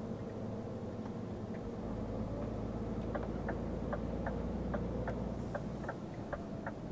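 Steady drone of a truck's engine heard inside the cab, with a turn indicator ticking at about two and a half ticks a second from about three seconds in.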